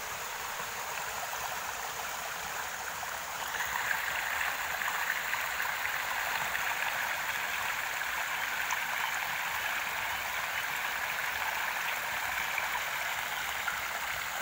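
Fast-flowing mountain water rushing down a narrow natural rock chute and splashing into a pool below: a steady rushing that grows louder about three and a half seconds in.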